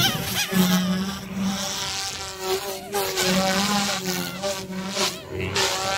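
Goosky S2 RC helicopter flying 3D aerobatics: a steady buzz from its motor and rotor blades that rises and falls in pitch again and again as it flips and changes direction.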